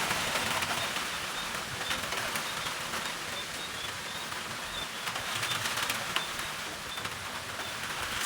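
Outdoor storm ambience at night: a steady hiss of rain and wind, with a faint high chirp repeating about three times a second.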